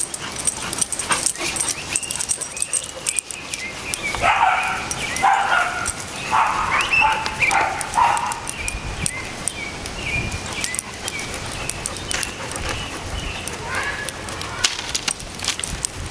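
Pit bull and mixed-breed dog playing, with play barking: a run of short barks between about four and eight seconds in and a few more near the end.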